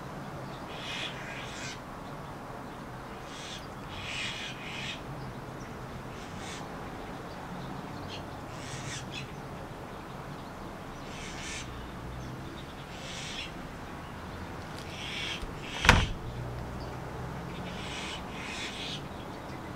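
Birds calling in short, repeated calls every second or two, over a low steady background hum. A single sharp knock about three-quarters of the way through stands out as the loudest sound.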